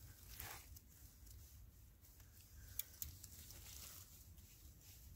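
Near silence, with faint rustles of clothing and equipment and a single faint click nearly three seconds in.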